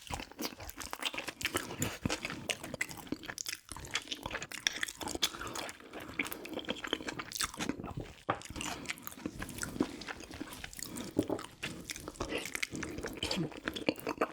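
Close-miked eating sounds of a meal of soy-braised pig's feet and kimchi: continuous chewing with crunching and a dense, irregular stream of wet mouth clicks and smacks.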